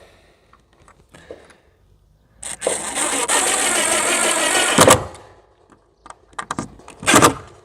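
Power drill driving a screw through a metal bracket into the fence's wooden cross bracing, the motor running for about two and a half seconds, then a few short bursts near the end as the screw is seated.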